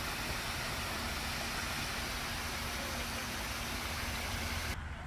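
Steady rushing of water pouring from a rock fountain's spouts and splashing into a pond, cutting off suddenly near the end.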